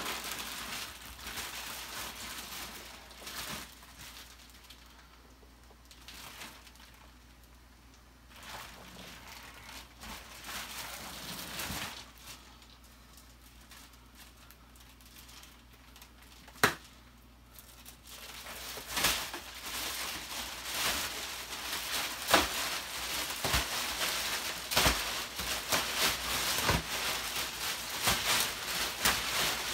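Clear plastic wrapping crinkling and rustling as it is pulled and smoothed off a new memory foam mattress, in stretches, busiest over the last third. One sharp click a little past halfway.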